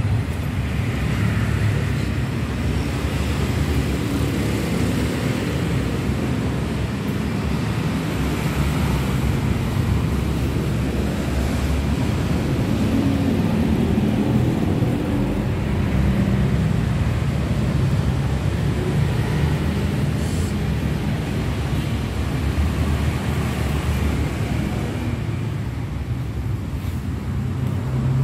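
Steady low engine drone of motor-vehicle noise, with no revving.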